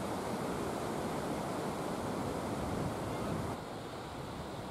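Wind buffeting the camera microphone: a steady rumbling hiss that drops a little in level about three-quarters of the way through.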